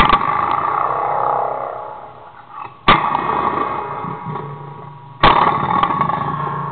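Homemade noise box, a metal plate with springs, threaded rods and a long steel wire, struck three times by hand. Each hit rings with a cluster of metallic tones that fade over two seconds or so.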